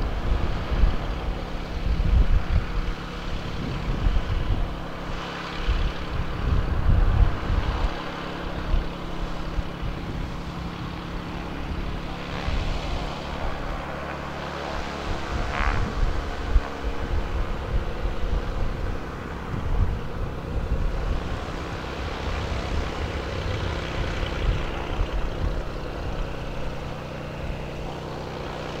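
Beechcraft A36 Bonanza's piston engine and propeller running steadily at low taxiing power. About halfway there is one short high-pitched squeal.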